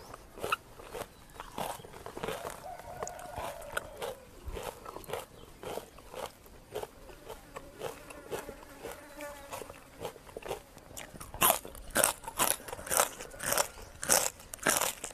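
Close-miked chewing and crunching of crisp fresh greens and spicy chicken-feet salad, the crunchy bites coming thicker and louder in the last few seconds.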